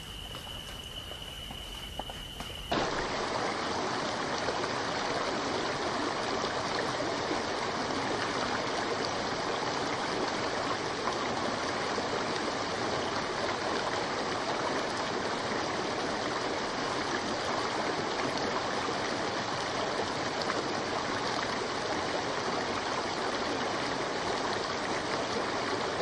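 Steady rushing water of a stream, cutting in abruptly about three seconds in. Before it there is a quieter stretch with a faint, steady high-pitched tone.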